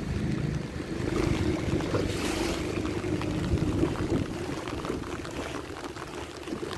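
A small boat's motor running under way, with wind on the microphone and water splashing around the hull; the low part of the engine sound drops away about five seconds in.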